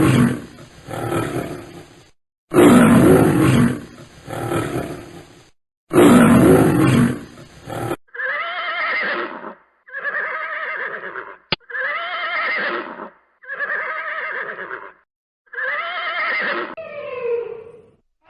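Animal calls: three loud, rough calls of a couple of seconds each, then a run of about six shorter, pitched, wavering calls, each about a second long.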